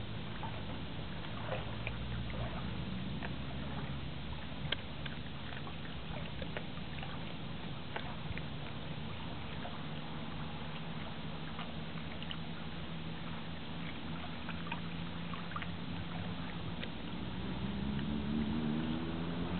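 A motor hums steadily at a low pitch, its pitch rising near the end, with scattered faint clicks over a background of water and hiss.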